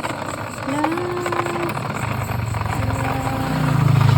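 A vehicle engine running, swelling louder near the end, with a few long held tones over it.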